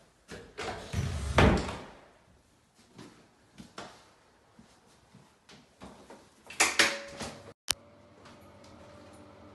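An interior door is handled and swung open with a heavy thud, followed by a few light knocks. About seven seconds in comes a sharper metallic rattle and clatter, where the glass shower-enclosure door is handled, and then a faint steady hum.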